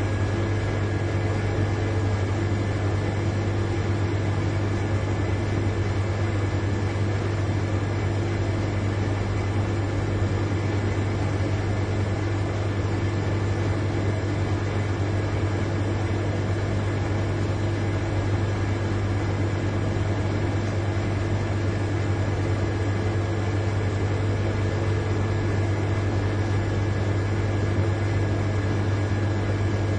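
Large refrigerator's compressor running with a steady, even hum, a strong low tone with fainter higher tones and a light hiss over it, unchanging throughout.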